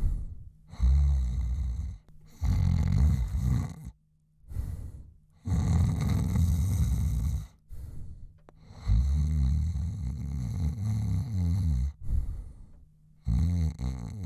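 A man snoring: about six loud, rattling snores, each one to three seconds long, with short gaps and breaths between them.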